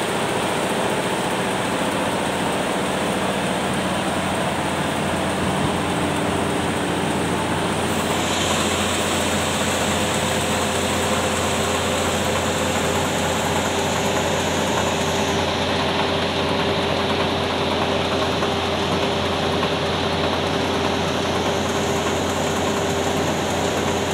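Large air-started diesel engine running steadily after start-up, a loud, even mechanical noise with some steady tones in it.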